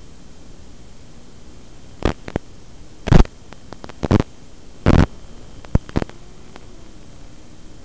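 Steady radio static hiss from an analog FPV video receiver, broken by a string of sudden loud crackling bursts where the signal breaks up.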